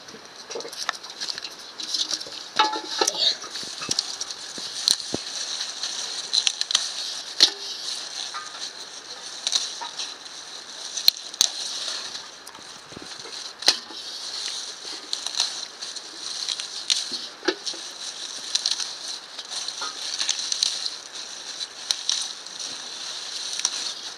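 Cooking over a fire: a steady sizzling hiss with many sharp crackles and pops throughout, as of greens cooking in a hot pan.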